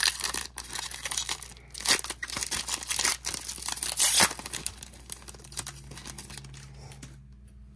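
Trading-card pack wrapper being torn open and crinkled by hand: sharp crackling rips for about four seconds, loudest twice, then dying away to quiet.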